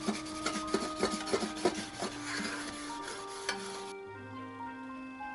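Wooden spatula scraping the bottom of a metal roasting tin in quick strokes, about four a second, loosening the roast beef drippings, over background music. The scraping stops a little before four seconds in.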